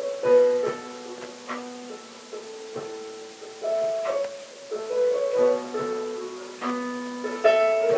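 Keyboard playing slow, soft chords, each note struck and held for about a second.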